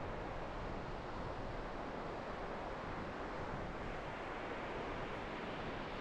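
Ocean surf washing steadily, an even hiss of breaking waves with no distinct single wave standing out.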